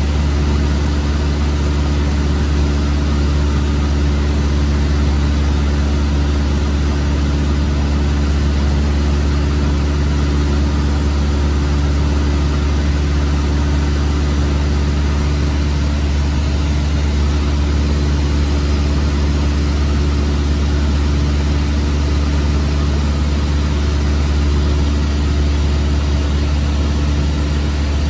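Light single-engine propeller airplane's engine and propeller droning at a steady pitch, heard from inside the cockpit.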